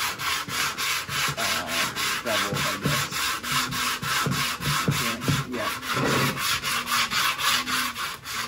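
Sandpaper rubbed by hand back and forth along the wooden rim of a taiko drum shell, a quick, even scratching of about four to five strokes a second, sloping and smoothing the rim's edge.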